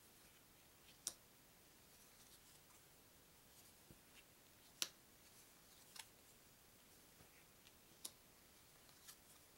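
Small paper game cards flipped one at a time off a stack on a wooden table: about five faint, sharp flicks and snaps spaced a second or more apart, the loudest about halfway through.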